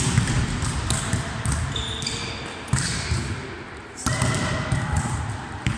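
A volleyball struck again and again in forearm passes, four sharp thuds spaced a second or more apart, echoing in a large sports hall.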